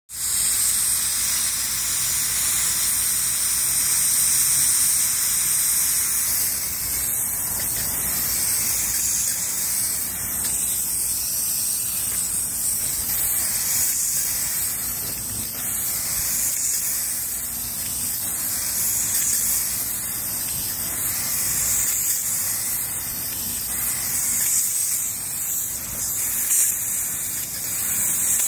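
Plural-component spray gun hissing steadily as it atomizes black roof coating.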